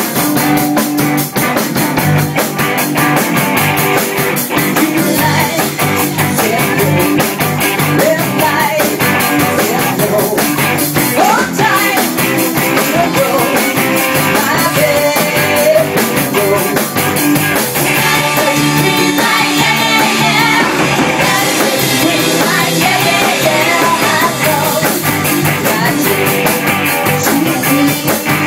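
Live rock band playing a rock-and-roll song: electric guitar, bass guitar and drums keeping a steady beat, with women's voices singing.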